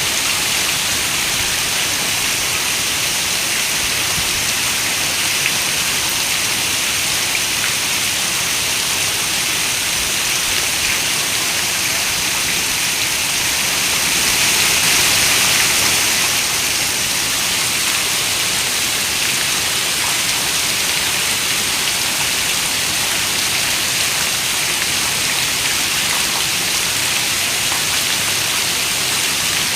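Steady rain falling, an even, dense hiss that swells slightly about halfway through.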